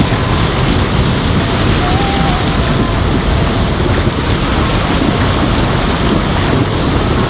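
Steady, rough wind noise buffeting the microphone of a camera mounted on the bonnet of a moving vehicle.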